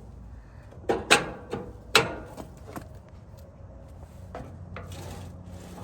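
A run of about six sharp knocks and clanks during the first three seconds, two of them much louder than the rest, then a low steady hum that sets in after about four seconds.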